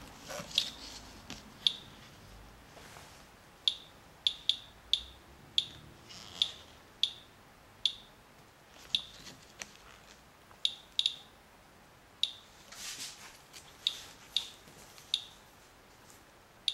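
Radalert Inspector Geiger counter chirping once for each detected count: short high beeps at an irregular rate of roughly one a second, while it measures a rain-wipe sample at about twice background radiation. A brief rustle comes about 13 seconds in.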